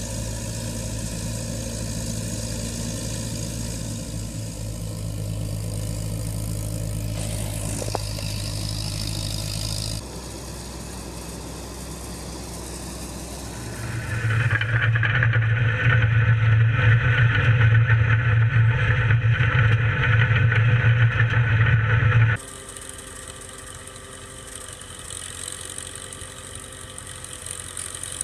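Engines of heavy farm machinery running steadily, heard across several short clips that change abruptly about 10, 14 and 22 seconds in. The loudest stretch runs from about 14 to 22 seconds.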